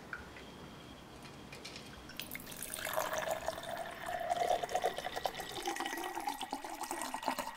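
Shaken cosmo cocktail double-strained from a metal shaker through a Hawthorne strainer and a fine mesh strainer into a coupe glass: a thin stream of liquid trickling and splashing. It starts about two seconds in and runs steadily on.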